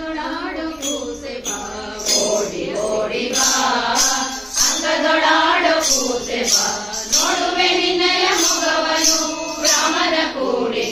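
Group of women singing a devotional bhajan together, with a percussion beat struck about twice a second.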